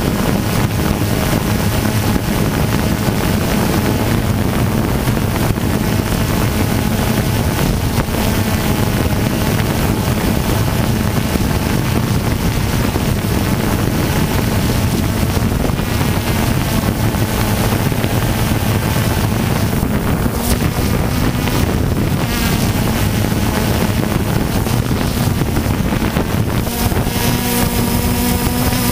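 DJI Phantom 2 quadcopter's motors and propellers running with a steady buzzing hum, mixed with wind noise on the microphone; the tones of the motors shift slightly near the end.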